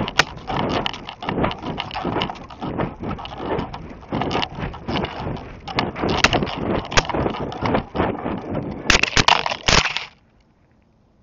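Wind buffeting the onboard camera of a descending Estes C6-5 model rocket, with irregular rattling and rushing. Just before ten seconds in come two louder crashes as the rocket lands in branches, and the sound then stops abruptly.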